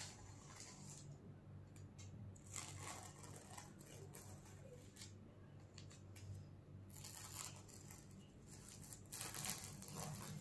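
Masking tape being peeled slowly off a painted canvas board: faint, irregular ripping rustles in a few separate pulls, over a steady low hum.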